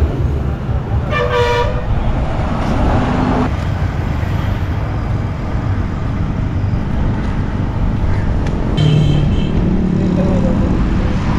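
Steady road traffic passing, with a vehicle horn tooting briefly about a second in.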